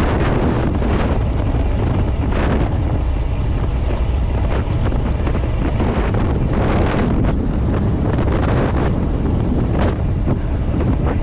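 Strong wind buffeting the microphone of a camera on a bicycle riding at around 40 km/h: a loud, steady low rush with sharper gusts every few seconds.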